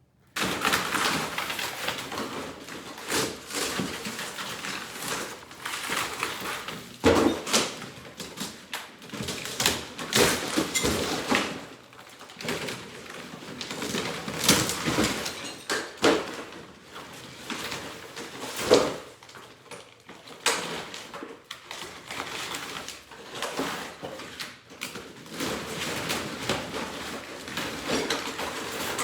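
Interior wall demolition: wall material and framing being pried and torn off an old brick wall, with ongoing scraping and cracking and irregular thuds and crashes of falling debris, several sharp, loud hits among them.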